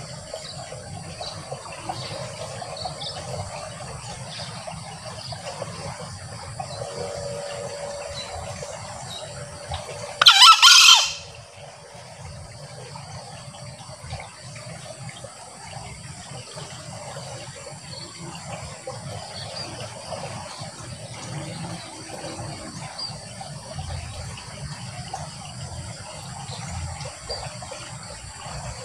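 A male green junglefowl crows once, a short shrill call lasting about a second, about ten seconds in, over a steady background hiss.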